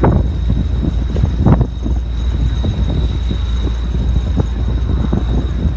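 Jet aircraft engines of the Blue Impulse display team's Kawasaki T-4 trainers, a steady low rumble that surges louder at the start and again about a second and a half in.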